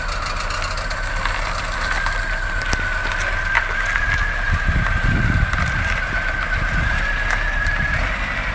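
VW Passat B4 estate running and creeping forward at low speed, with a steady high-pitched whine throughout and a low rumble that swells about four to five seconds in.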